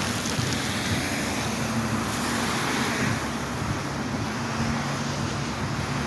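Steady rushing noise of rain and wind, with a low engine hum underneath.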